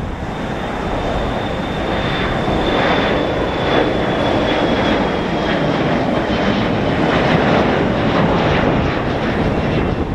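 The Embraer 175's two GE CF34-8E turbofans at takeoff thrust as the jet lifts off and climbs out: loud, steady jet noise with a thin high fan whine that slowly drops in pitch.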